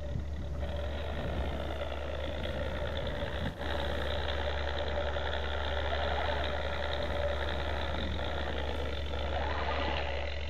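Simulated engine sound from a 1/10-scale RC Jeep Wrangler JK Rubicon crawler's sound module, a steady running engine note through its small speaker as the truck crawls along, with a brief break about three and a half seconds in.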